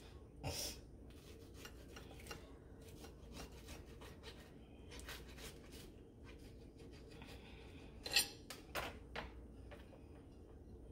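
A knife sawing through the toasted crust of a grilled cheese sandwich, in a run of short scratchy rasping strokes, the loudest about half a second in and about eight seconds in.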